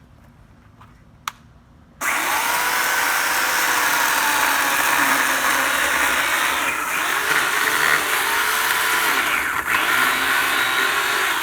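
Electric power saw cutting into tree roots. It starts abruptly about two seconds in and runs steadily, its motor pitch dipping and recovering several times as the blade bogs under load.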